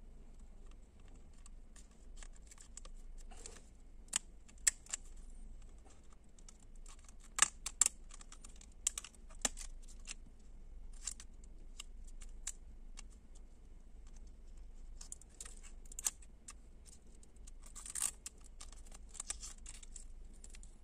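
Small scissors snipping at a clear plastic pouch, with the plastic crinkling: irregular sharp snips and clicks, with a denser crinkling stretch near the end.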